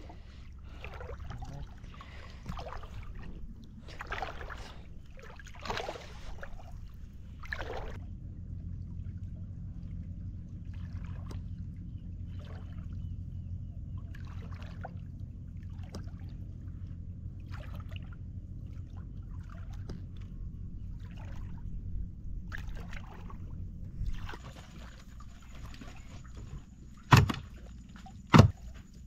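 Splashing and sloshing steps of a person wading through shallow water over seagrass, with a steady low rumble underneath; the splashes thin out after several seconds. Near the end, two loud sharp knocks as the catch is handled at a plastic fish crate.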